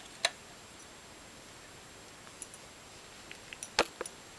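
Sharp light clicks of thin glass tubes tapping together as they are handled: two quick clicks at the start, a few faint ticks, then a louder click near the end, over faint room hiss.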